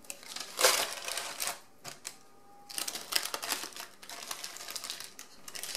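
Baking paper crinkling and rustling in irregular bursts as a sheet of baked seed cracker is flipped over and the old paper is peeled off its top.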